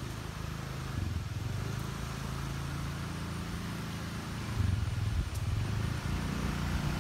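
Motor scooter engine running with a steady low hum, getting louder about four and a half seconds in as it draws near.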